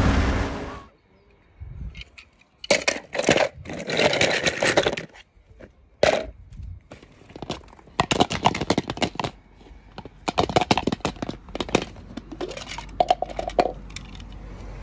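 Irregular bursts of crunching, clattering handling noise: small hard objects knocked and scraped together, after a loud passage that cuts off within the first second. A brief steady tone sounds near the end.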